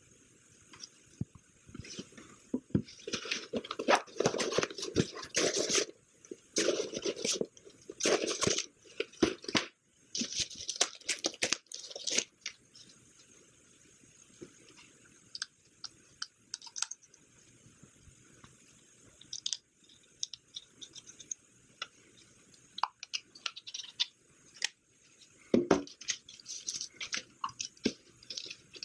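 Plastic bags and paper wrapping crinkling and rustling as they are handled while drone parts are unpacked. The crinkling is dense from about three seconds in until about twelve, then gives way to scattered clicks and rustles, with one louder rustle near the end.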